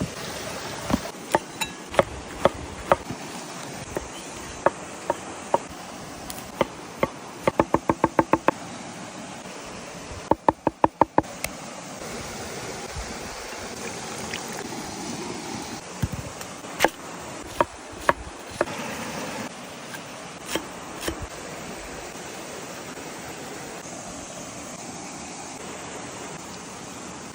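Sharp knocks and taps over a steady rushing noise, with two quick runs of about eight taps a second early on and scattered single knocks later.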